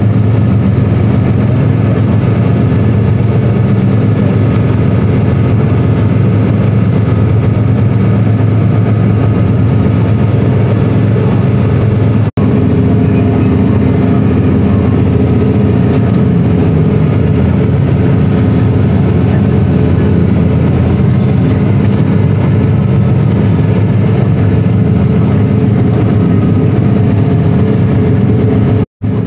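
Claas Axion 850 tractor's six-cylinder diesel engine running steadily, heard from inside the cab. There is a momentary break in the sound about twelve seconds in.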